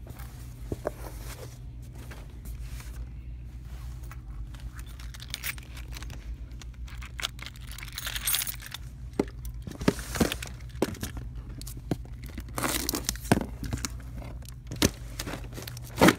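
Handling noise: rustling, rubbing and scattered knocks as a phone is jostled against clothing and a plastic shopping basket, over a steady low hum. The knocks come more often in the second half, with sharper clatters about ten seconds in and at the end.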